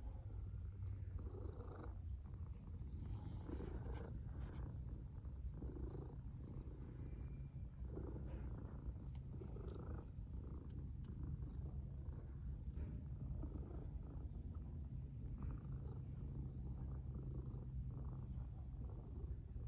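Cat purring steadily.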